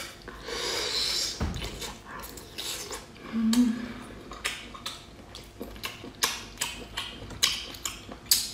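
Close-up eating sounds: wet chewing, slurping and a run of short mouth smacks and clicks. A brief low hum comes about three and a half seconds in.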